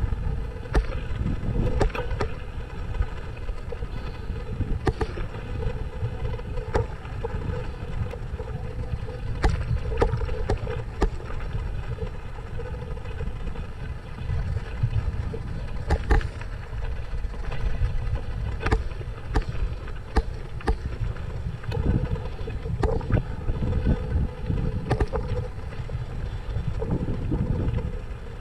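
Mountain bike riding over a dirt singletrack, heard from a handlebar-mounted action camera: a steady wind and tyre rumble with frequent sharp clicks and rattles from the bike as it goes over bumps.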